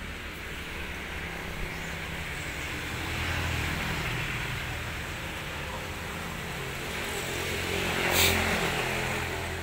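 An engine runs steadily in the background, swelling slightly twice. There is a single sharp click about eight seconds in.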